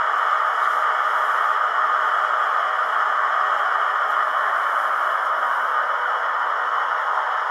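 Howes sound decoder in a Hornby Class 60 model locomotive playing the diesel's idling engine sound through its small onboard speaker: a steady, even hum with no bass.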